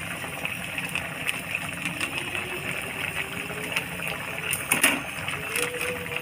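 Gravy simmering in a kadai, a steady hiss, with a metal spatula scraping and clinking against the pan now and then, most strongly a little before five seconds in.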